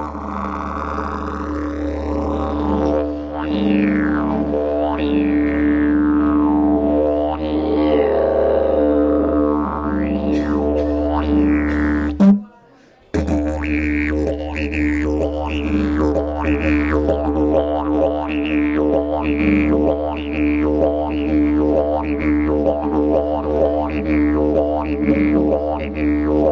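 Didgeridoo played solo: a steady low drone with overtones swept up and down by the mouth. It breaks off briefly about halfway, then comes back with a rhythmic pulse a little faster than once a second.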